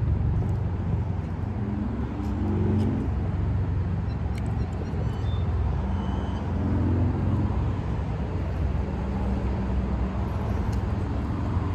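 Street traffic: a steady low rumble of passing cars, with engine notes swelling as vehicles go by about two seconds in and again around six to seven seconds.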